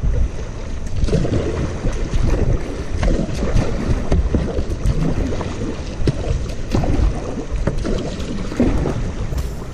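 Kayak paddle strokes dipping and splashing, with water sloshing and gurgling against the hull close to the microphone.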